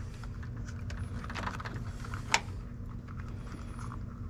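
Small clicks and rustling of speaker wire being handled and pushed through a van door's rubber wiring boot, with one sharper click a little past halfway.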